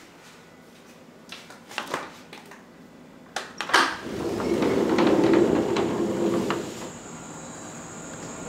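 Sliding glass patio door being handled: a few sharp clicks and knocks, then a rumbling noise for about three seconds as it rolls along its track. Near the end a steady high-pitched drone of summer insects begins outdoors.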